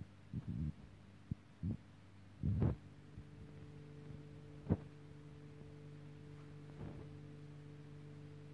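Dull low thumps and bumps from a handheld phone camera being moved in the first few seconds, then a steady low hum with one sharp click about halfway through.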